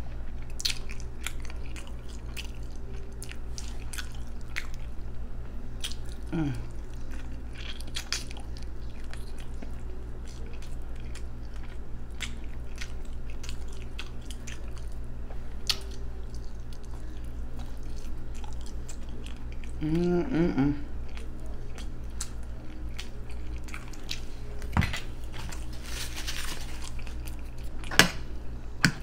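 Close-miked chewing and lip smacking as oxtail meat is eaten off the bone, with many sharp wet mouth clicks throughout. A short hum from the eater's voice comes twice, a few seconds in and about two-thirds of the way through, over a steady low hum.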